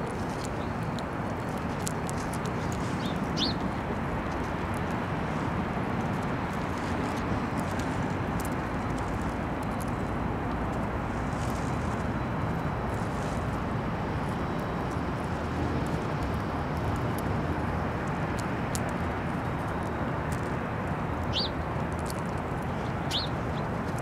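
Steady outdoor background noise, a mix of low rumble and hiss, with a few short, high bird chirps: one about three seconds in and two near the end. Faint scattered clicks.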